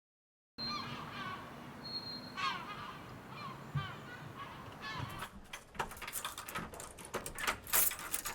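Birds calling in short, repeated chirps, then from about five seconds in a quick run of sharp clicks and clinks.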